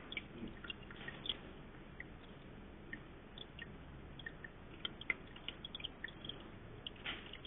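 A rabbit's mouth making faint, irregular wet clicks and smacks, with a short rustle near the end.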